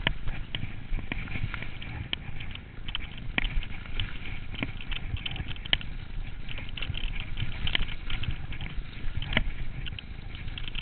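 Mountain bike riding fast over frozen, snow-covered singletrack: a steady low rumble of the tyres on the trail, with frequent sharp clicks and rattles from the bike over bumps.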